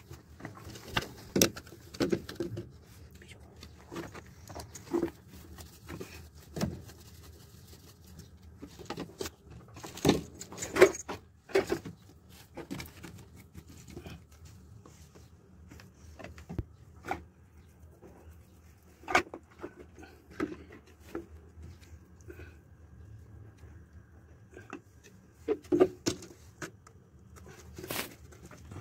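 Irregular knocks, taps and clicks of handling at close range, with a handful of louder sharp knocks spread through. This fits the phone being handled while plastic pipe fittings are moved about on a concrete floor. There is no steady machine or tool running.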